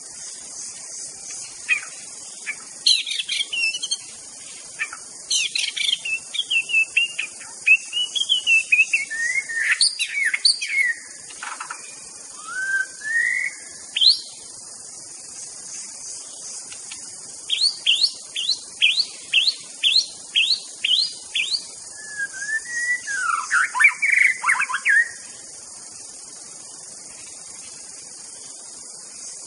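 White-rumped shama singing: a string of varied whistled phrases that glide up and down, then after a short pause a run of about eight quick rising notes, roughly two a second, and a dense burst of chattering notes near the end.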